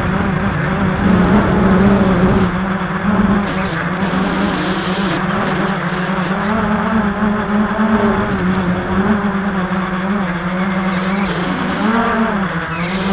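Multirotor drone's motors and propellers buzzing steadily, the pitch wavering slightly as it holds its flight.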